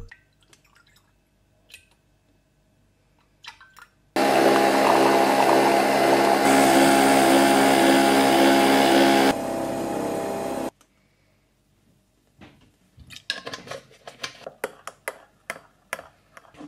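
Coffee machine's pump buzzing steadily for about six seconds as coffee runs into a glass mug of milk, then stopping. After it, a spoon clinks repeatedly against the glass mug as the coffee is stirred.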